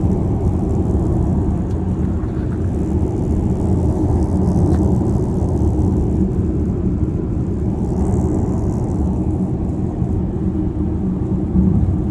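Steady low road and wind rumble inside the cabin of a BMW iX M60 electric SUV on the move, with a few faint ticks of the roof noise fault the owner is documenting.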